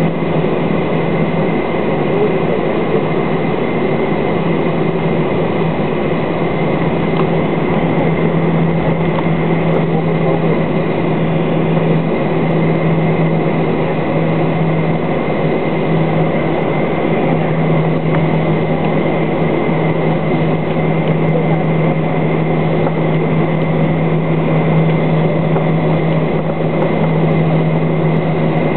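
Boeing 737-800's CFM56-7B jet engines running at low taxi power, heard inside the passenger cabin: a steady drone with a constant low hum and no rise in power.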